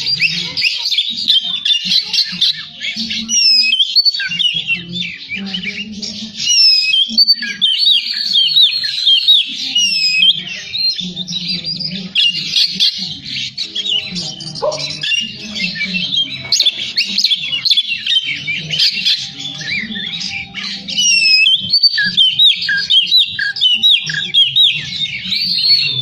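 Oriental magpie-robin (kacer) singing without a break: a rapid, varied stream of whistles, trills and sliding notes, full of phrases mimicked from other birds.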